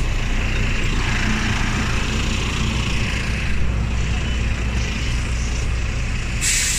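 Double-decker bus idling with a steady low engine rumble under an even hiss of rain on the wet road. Near the end a loud hiss of released air starts, typical of the bus's air system.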